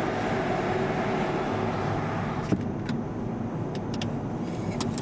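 Steady mechanical rumble and hum on a ferry's enclosed vehicle deck. There is a single sharp knock about halfway through, then a few light clicks.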